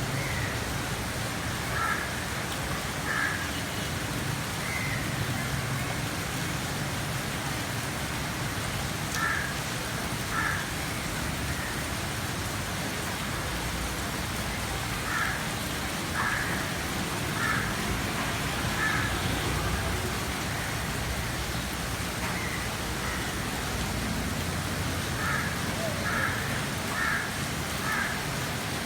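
Steady rain falling, an even hiss. Now and then a bird gives short calls in groups of two or three.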